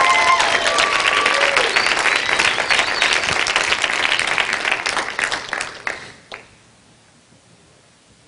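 Audience applauding, with a few voices over it near the start; the applause dies away about six seconds in.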